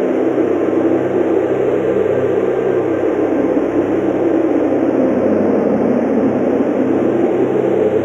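Strong wind blowing through forest trees in a snowstorm, a steady rushing that sinks lower in pitch around the middle and rises again near the end.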